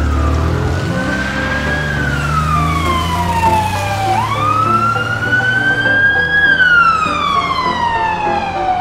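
Ambulance siren wailing in slow rises and falls, two full cycles of about four and a half seconds each, over a low steady rumble.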